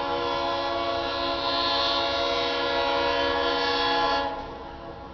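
Locomotive horn on an approaching BB40-9WM diesel locomotive sounding one long blast of several notes together, held steady for about four seconds and then cut off: the arriving train signalling its approach to the station.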